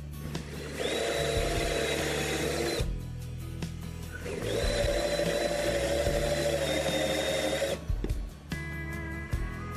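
Cordless drill running in two long runs of two to three seconds each, a steady whine, then a shorter run near the end, drilling into wooden trim under the soffit.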